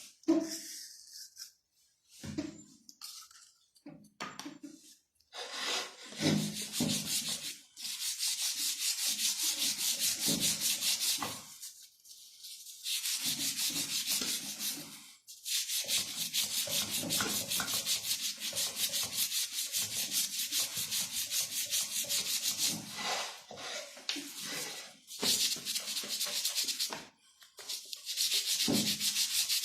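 Rapid back-and-forth scrubbing on a CG 125 motorcycle's rear hub as cleaner and polishing compound are worked into the metal. It comes in long runs of fast, even strokes with short pauses between them.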